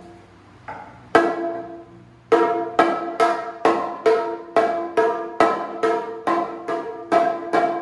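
Chenda, the Kerala cylinder drum, struck on its head with a curved stick. A couple of single strokes come first, then from about two seconds in a steady beat of about two to three strokes a second, each stroke ringing with a clear pitch.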